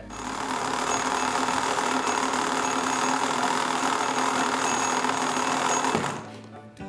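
A steady, loud droning noise, hissy and engine-like, with a few faint held tones in it. It swells in at the start and fades away about six seconds in.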